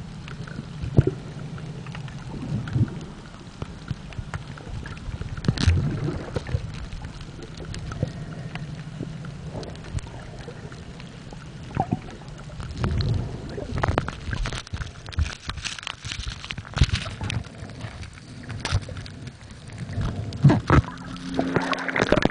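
Underwater ambience through a submerged camera: a low steady drone with scattered clicks and knocks, and louder sloshing bursts toward the end as the camera comes up to the surface.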